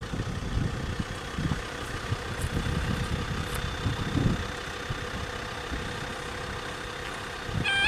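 Motor vehicle engine idling with a steady low rumble. Near the end the level crossing's two-tone warning alarm starts sounding, loud and alternating between two pitches.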